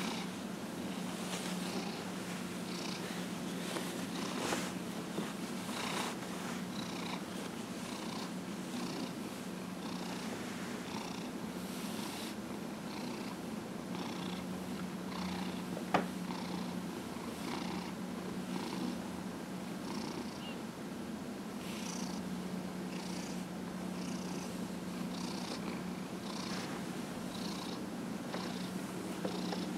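A 15-year-old domestic cat purring steadily and continuously while being massaged on a lap. A single sharp click sounds about halfway through.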